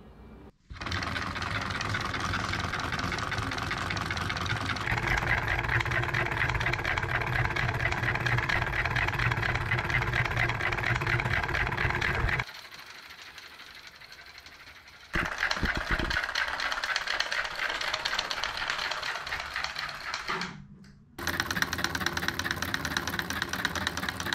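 Homemade solenoid engine running under Arduino control, its solenoid cylinders firing in quick succession with a fast, even clatter and a low hum. The sound drops away and comes back twice.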